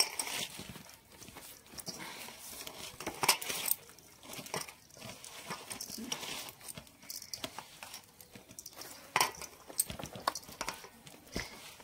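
Hands pressing and rubbing thekua dough on a woven bamboo winnowing tray: irregular scratching and rustling against the bamboo, with sharp little clicks here and there.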